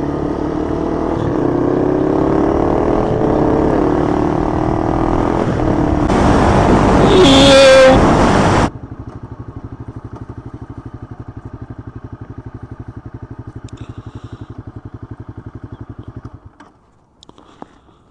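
Motorcycle engine running under way, its pitch falling as the bike slows, then a loud rushing noise that cuts off suddenly. The engine then idles with an even pulse for about eight seconds before it stops, leaving a few faint clicks.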